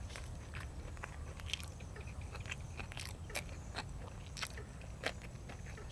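A person chewing and crunching raw vegetables close to the microphone, with irregular sharp crunches and clicks over a steady low hum.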